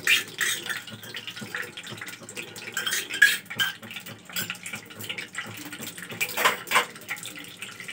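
A metal spoon clinking and scraping against a steel cup and a frying pan, a few sharp knocks among them, over a steady hiss of ghee heating in the pan.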